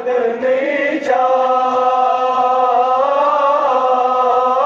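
A young boy's unaccompanied voice chanting a Kashmiri noha, a Muharram lament. A short wavering phrase breaks off about a second in, and the voice then holds one long note, wavering slightly, to the end.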